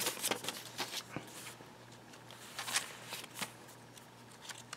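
Paper pages and inserts of a handmade journal being handled and turned: crisp rustling and flapping of paper, a cluster of rustles in the first second or so and a few more around three seconds in, quieter in between.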